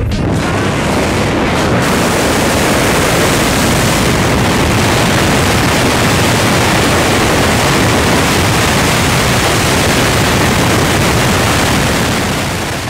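Loud, steady rush of wind buffeting the camera microphone during a skydive, a dense hiss with no pitch or rhythm.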